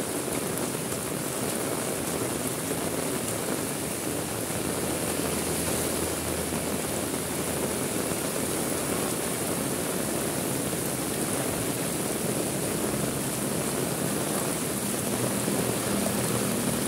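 Heavy rain falling steadily, with a low steady hum joining in during the second half.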